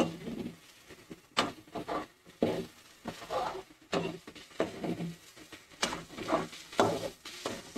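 Perforated metal ladle stirring and scraping diced vegetables in an aluminium kadai while they sauté, with several sharp clinks of the ladle against the pan.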